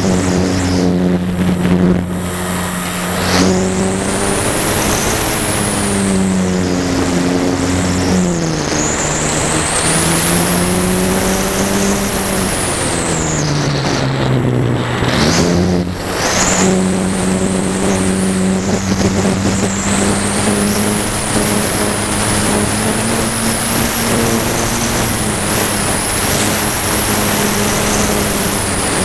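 Phoenix 2000 RC glider's electric motor and propeller running under power. It makes a steady hum that sags in pitch a few times as the throttle is eased, most deeply about halfway through, with a high whine over it and wind rushing across the onboard camera's microphone.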